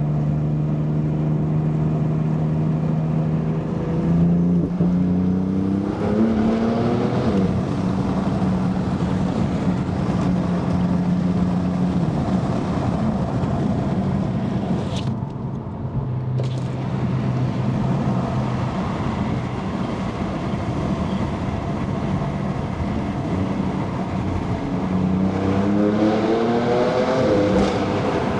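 Stage 2 tuned BMW F80 M3's twin-turbo straight-six running at steady revs on the road. The engine note rises in pitch twice as the car accelerates, about four seconds in and again near the end.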